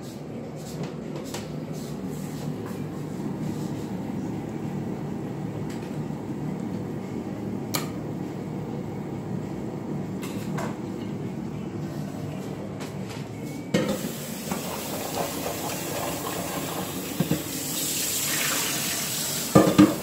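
Dishes and pans clattering and a water tap running into the sink near the end, over a steady low hum with a few sharp clicks.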